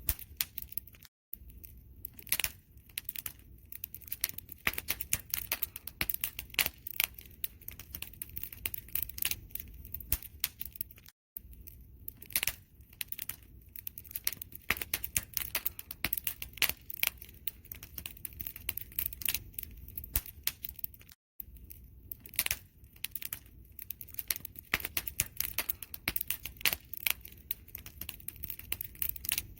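Campfire crackling: dense, irregular snaps and pops over a low rumble of burning wood. The sound cuts out completely for an instant three times, about every ten seconds.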